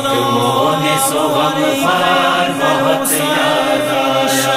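Several voices chanting a held, wordless chorus of a noha between the lead reciter's verses, the notes sustained and shifting every second or so.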